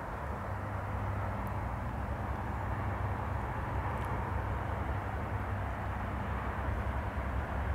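Steady distant engine rumble with a low hum underneath, holding level throughout.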